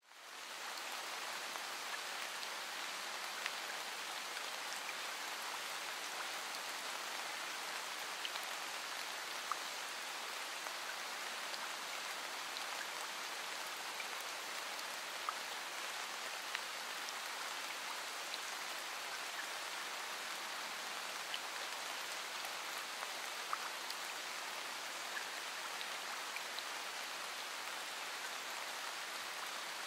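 Steady rain falling, with scattered single drops ticking distinctly above the hiss. It fades in during the first second.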